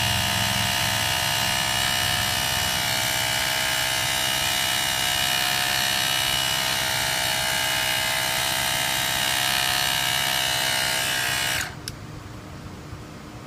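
SUAOKI 12 V portable mini air compressor running steadily with a high, many-toned buzz over a low hum while pumping up a bicycle tyre. It switches off suddenly after about eleven and a half seconds.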